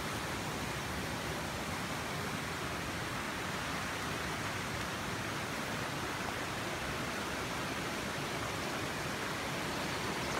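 Steady rushing of falling water from a waterfall: an even, unbroken noise with no change in level.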